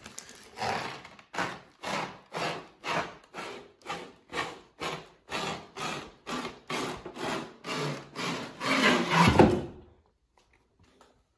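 Cardboard packaging and plastic-wrapped lamp shade scraping against the inside of a cardboard box as it is worked up and out, in an even back-and-forth rhythm of about two rubs a second. The last strokes, loudest, come just before the shade slides free.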